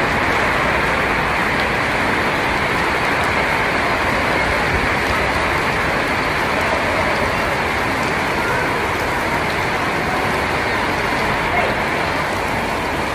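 Steady heavy rain falling and pattering on surfaces, a dense even hiss.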